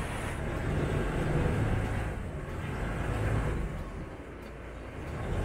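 Canal commuter boat's engine running underway, a steady low rumble with rushing wind and water noise, dipping a little about four seconds in.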